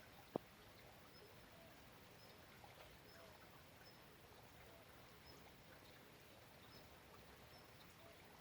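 Faint steady rain, with one sharp tap about half a second in and faint short chirps from birds or other animals repeating throughout.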